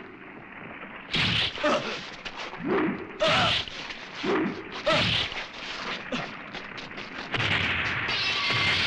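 Monster sound effects: pairs of short, loud cries with bending pitch, repeated about three times, then one more. About seven seconds in, a steady rushing noise takes over.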